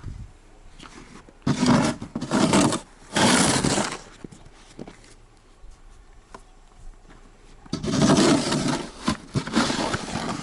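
Large homemade snow shovel scraping and pushing snow in two runs of strokes: three scrapes from about a second and a half in, then another run of scrapes from about eight seconds in.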